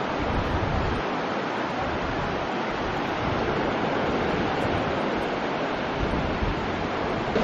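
Sea surf washing onto a sandy beach as a steady rushing noise, with gusts of wind buffeting the microphone now and then.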